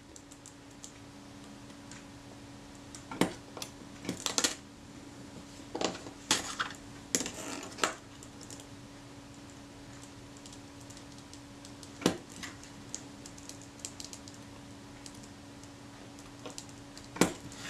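Scattered small metal clicks and short scratches as a pointed scriber marks across the focus helical rings against a steel rule. They come in a few clusters with pauses between, over a faint steady hum.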